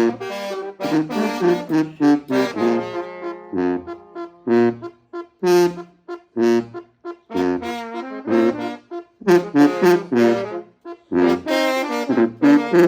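Children's brass band playing, with trumpets and trombones in short, rhythmic phrases separated by brief pauses and a lower held note underneath at times.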